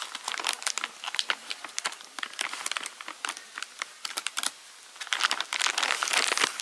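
Plastic dry-cat-food bag crinkling and rustling as kittens nose into it, a dense run of small sharp crackles, louder in the last second and a half.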